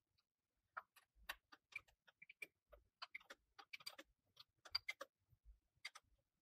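Faint, irregular metallic clicks of an open-end wrench turning the nuts on an industrial sewing machine servo motor's threaded height-adjusting bolt, lowering the motor to take up belt tension.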